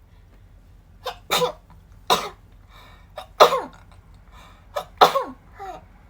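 A woman sneezing four times in a row, each a short, sharp burst, about a second or a second and a half apart.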